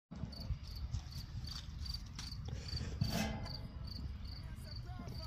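Crickets chirping steadily, about two and a half chirps a second, over a low rumble. About three seconds in there is a single louder clatter as the grill lid is lifted off.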